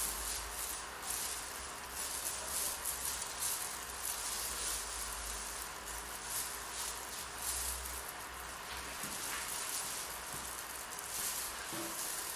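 Soft, hissy rustling of a tint brush working hair dye through damp hair, handled by plastic-gloved hands, in irregular strokes.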